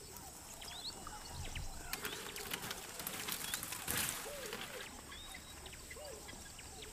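Faint savanna ambience of many small birds chirping and whistling in short, quick calls, with scattered light clicks.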